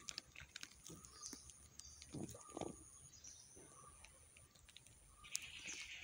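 Faint outdoor ambience: scattered soft ticks and a few dull crunches, with faint high chirps. A steady high buzzing hiss starts about five seconds in.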